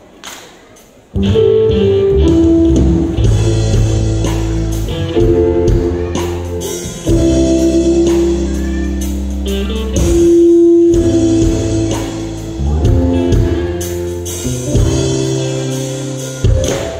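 Instrumental introduction to a choir song, with held chords over a steady bass line, starting suddenly about a second in.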